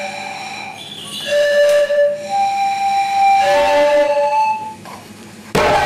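A short run of held whistle notes, each lasting about a second, moving between two or three pitches. About five and a half seconds in, hand drumming starts abruptly and loudly.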